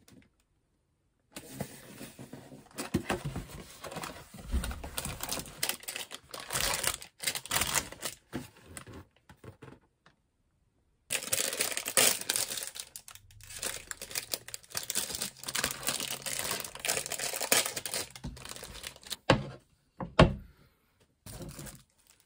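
Thin plastic wrappers crinkling and tearing as individually packed Korean potato breads (gamja-ppang) are unwrapped by hand, in two long stretches with a short gap between. A couple of short knocks come near the end.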